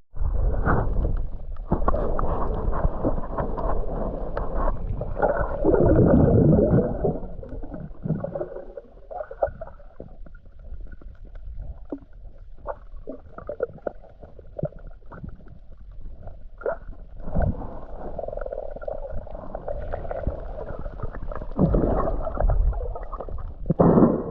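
Muffled sloshing and churning of seawater around a camera held by a swimmer, with no high end to the sound and swells in loudness as the strokes go.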